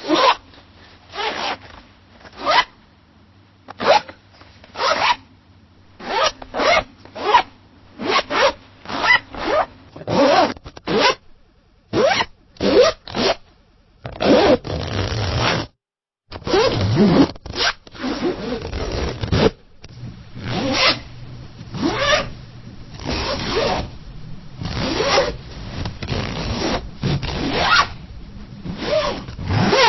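A zipper being zipped up and down over and over in short quick strokes, some longer pulls in between.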